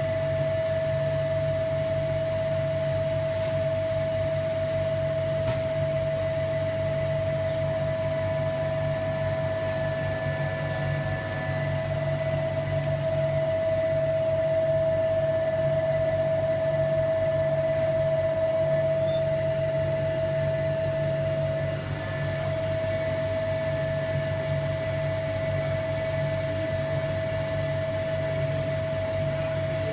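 Vacuum pump running steadily, a low hum under a constant whine, drawing vacuum on a bagged carbon fibre layup.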